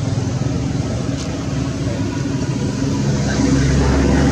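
An engine running steadily with a low hum, its lowest notes growing a little louder about three and a half seconds in.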